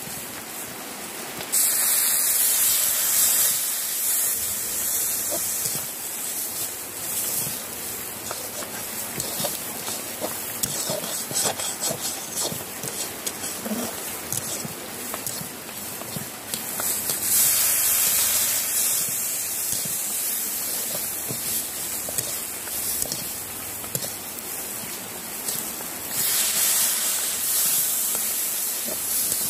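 Water added a little at a time to a hot pan of fried semolina and potatoes, hissing and sizzling as it hits. There are three loud spells of hiss: a second or so in, past halfway, and near the end.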